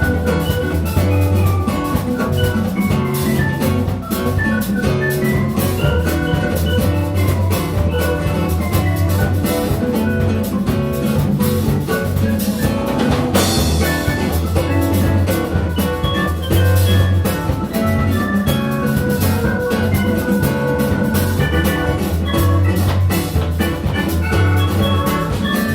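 Instrumental ensemble music: a drum kit keeps a steady beat under bass and bright melodic lines, with a cymbal crash about halfway through.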